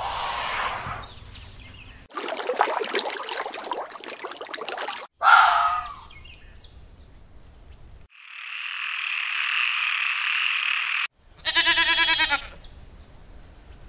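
A string of separate animal calls: elephant sounds at the start, a red fox's call about five seconds in, an even hissing chorus for about three seconds, then a domestic goat bleating in a wavering voice near the end.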